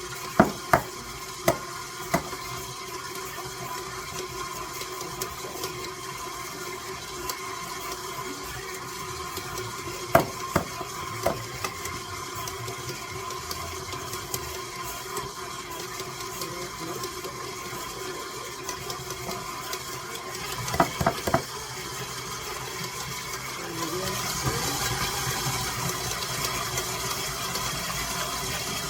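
Electric kitchen mixer running steadily on its lowest speed with a hum, while eggs are cracked against the rim of a bowl: a few sharp knocks at the start, two more about ten seconds in, and a quick cluster around twenty-one seconds in. The sound grows louder and noisier near the end.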